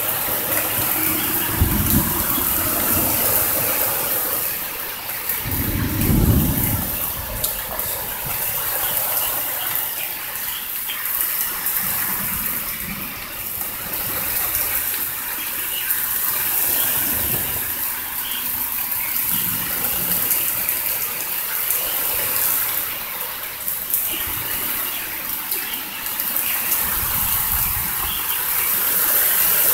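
Heavy rain and wind of a severe thunderstorm squall line, a steady loud hiss, with low rumbles about two and six seconds in and weaker ones later.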